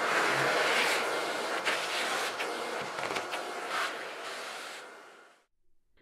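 Vacuum cleaner running as its nozzle works over the type bars of an old Underwood No. 5 typewriter, with a few sharp clicks. The sound fades out about five seconds in.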